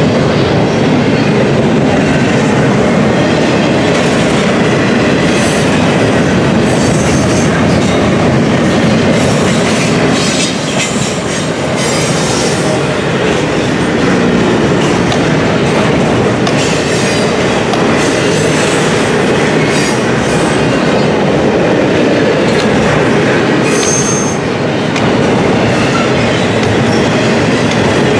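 Double-stack intermodal container cars rolling past: a loud, steady rumble of steel wheels on the rails, with brief high-pitched wheel squeals now and then, the clearest about three-quarters of the way through.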